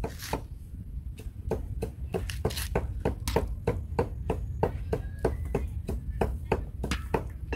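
Knife chopping food on a cutting board in a steady run of quick strokes, about four a second.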